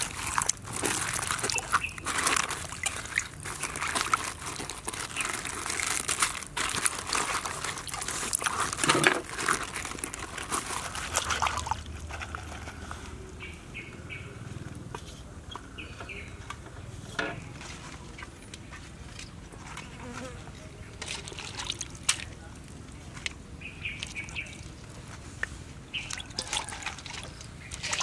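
Napa cabbage leaves being handled and rinsed: crinkly rustling and light splashing of water in a steel bowl, dense for the first dozen seconds, then quieter with scattered soft knocks against the metal and a few faint high chirps.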